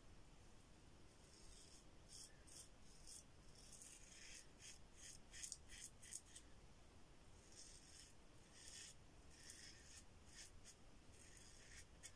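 Yuma closed-comb double-edge safety razor with a Derby Ursa blade cutting four-day stubble through lather: faint, short, repeated rasping strokes, several a second in runs.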